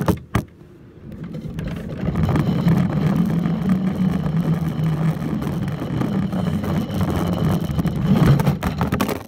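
Two sharp knocks, then the plastic cart of a kids' backyard roller coaster rolling along its track with a steady rumble. The rumble builds over the first couple of seconds and stops suddenly at the end.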